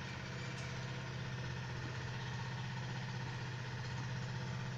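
Dudhi kofta batter frying in hot oil in a steel kadai, a steady sizzle, over a constant low mechanical hum.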